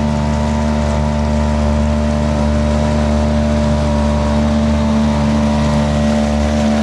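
An engine running steadily at constant speed, a loud, even drone with no change in pitch.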